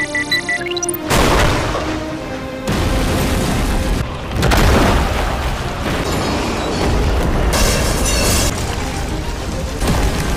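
A bomb's electronic timer beeps quickly, then is cut off by a loud explosion. More blasts and a heavy rumble of fire and falling debris follow, over dramatic music.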